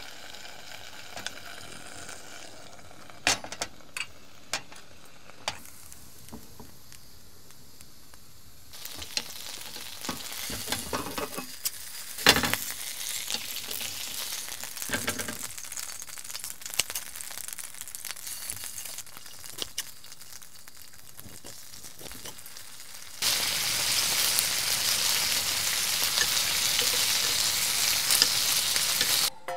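Chicken leg steak frying in a pan, sizzling with scattered crackles. A few sharp clicks come first; the sizzle sets in about a third of the way through and turns much louder near the end, then cuts off abruptly.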